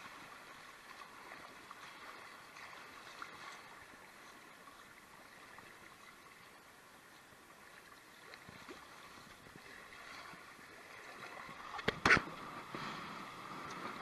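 Faint sound of river rapids around a kayak being paddled through them, fading almost away in the middle. There is a sharp knock about twelve seconds in.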